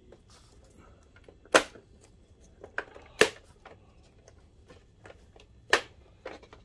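Plastic snap catches of an Optoma HD180 projector's top case popping loose as the cover is pried off: three sharp snaps with a few smaller clicks between them.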